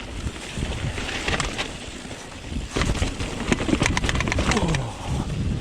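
Mountain bike descending rough trail: tyre rumble with the bike knocking and rattling over roots and rocks, and wind buffeting the microphone.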